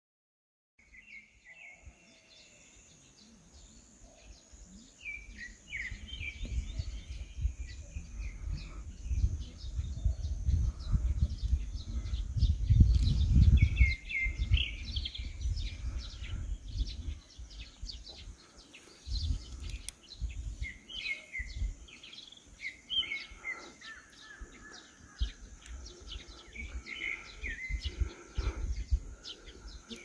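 Small birds chirping and trilling again and again, over irregular gusts of wind rumbling on the microphone that are loudest about halfway through.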